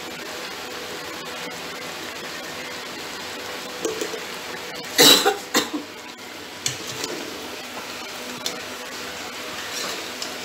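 A person coughs twice in quick succession about five seconds in, over the steady hiss of mutton and spice paste frying in an open aluminium pressure cooker.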